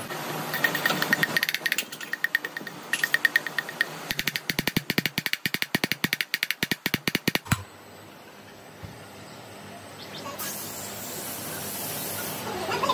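Rapid, repeated metallic tapping, about seven strikes a second, with a ringing note in the first few seconds; it stops abruptly about halfway through, leaving a faint steady hiss.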